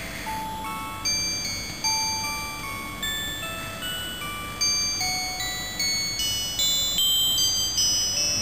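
Background music: a melody of high, bell-like chiming notes, each struck sharply and then fading, with the beat growing more pronounced about a second in.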